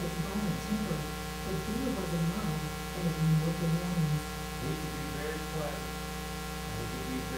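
Steady electrical mains hum, a buzz of many fixed tones, with a faint muffled voice under it during the first few seconds.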